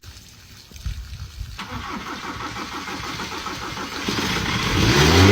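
A car engine starting with a pulsing turn-over that grows louder, then revved up and back down near the end.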